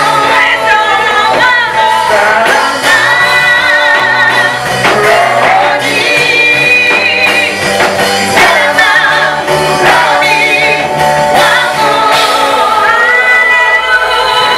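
Gospel praise music: a group of singers singing a worship song together, their held notes wavering with vibrato over steady low notes.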